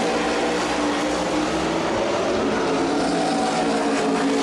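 NASCAR Cup cars' V8 engines running on the road course, several engines blending into one steady drone whose pitch drifts slowly up and down.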